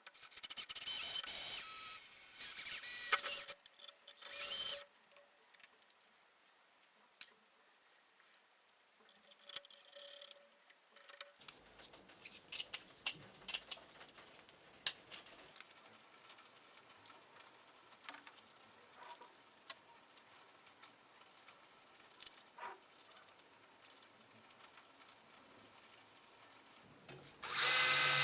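A handheld power tool runs in short bursts, two loud ones at the start and a weaker one about ten seconds in. Between them come scattered clicks and knocks of tools and parts being handled. Near the end a motor starts up and runs steadily with a high hum.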